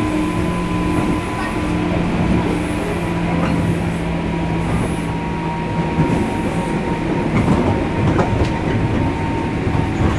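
Running sound aboard a JR Kyushu 103 series electric train's motor car: a continuous rumble of the train under way, with a steady low hum that fades out about five seconds in and a few sharp clicks in the second half.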